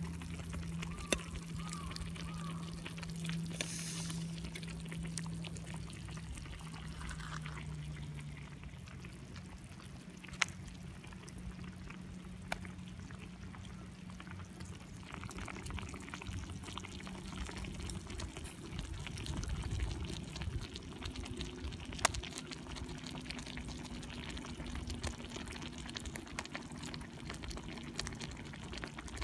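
Liquid trickling in a thin, steady stream, with a few sharp clicks.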